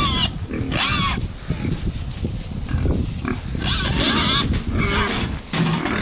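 A group of young pigs grunting continuously, with several short, high squeals breaking through at the start, about a second in, and twice more in the second half.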